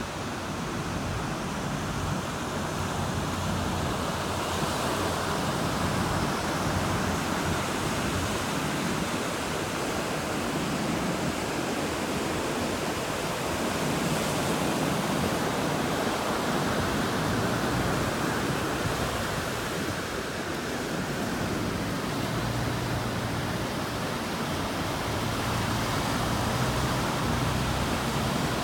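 Ocean surf breaking on a sandy beach: a steady rushing wash that swells and eases slowly.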